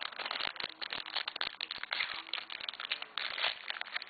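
Foil wrapper of a Topps Triple Threads trading-card pack crinkling and crackling irregularly as it is opened by hand and the cards are worked out of it.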